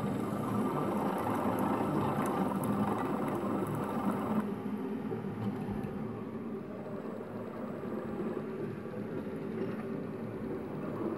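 Single-cup pod coffee maker brewing: its pump running as hot coffee pours into a ceramic mug, the sound dropping somewhat quieter about four seconds in.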